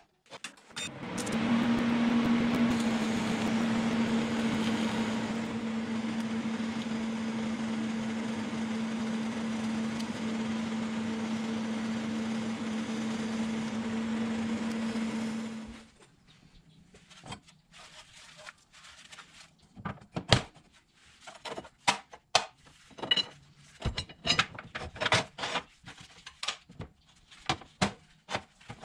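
A power tool runs steadily for about fifteen seconds with a constant hum over a wide hiss, its pitch settling a little lower once it is under way, then winds down. After that come scattered short clicks and knocks.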